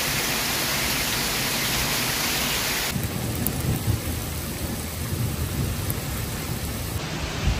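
Heavy rain pouring steadily onto flooded pavement. About three seconds in, the sound cuts to a second downpour with irregular low rumbles of thunder.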